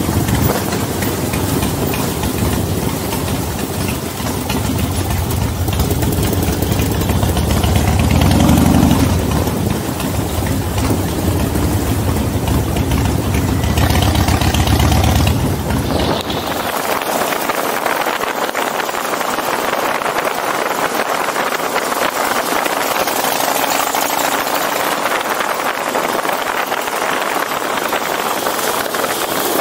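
V-twin motorcycle engine running at low speed, growing louder twice as it pulls. About halfway through, the deep engine sound drops away abruptly, leaving a steady rush of wind and road noise.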